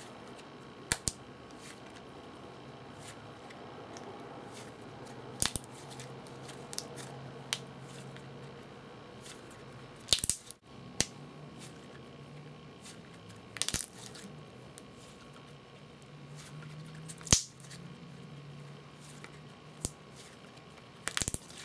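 Wet icy slime being stretched and squeezed by hand, giving irregular sharp clicks and pops, a few in quick runs.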